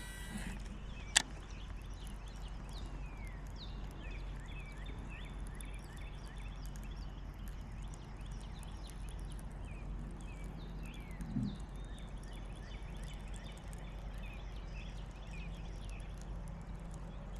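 Quiet outdoor ambience: a steady low rumble with faint, repeated bird chirps over it, and a single sharp click about a second in.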